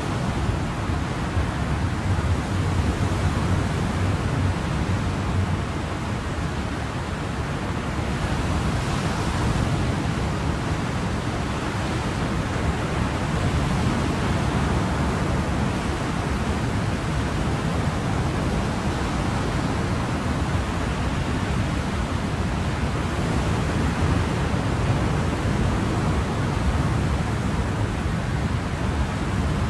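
Ocean waves and surf, a steady rushing wash that swells gently and eases again every few seconds.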